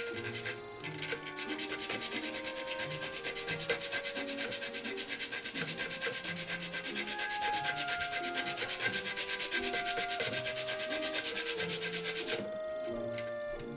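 Whole nutmeg grated on a small cylindrical metal grater: a quick, even rasping, about four strokes a second, that stops near the end. Quiet background music with held notes underneath.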